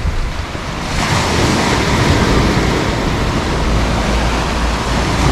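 Small Black Sea waves breaking and washing over a pebble beach: a steady rush of surf that grows louder about a second in.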